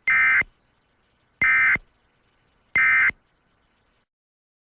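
Emergency Alert System end-of-message signal: three short bursts of buzzing digital data tones, about a second apart. The bursts are the SAME 'NNNN' code that marks the end of an alert broadcast.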